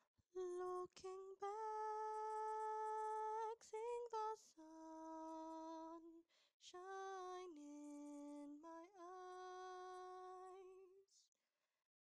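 A single voice humming a slow, unaccompanied melody in long held notes, with a short break midway.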